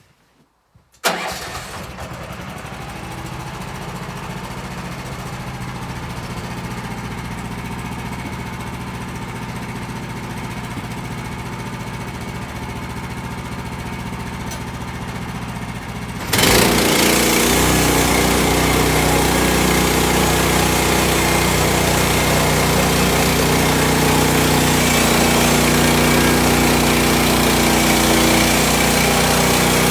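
Woodland Mills HM130 sawmill's petrol engine starting about a second in and running steadily at low speed, then throttled up suddenly some sixteen seconds later and running much louder and steady.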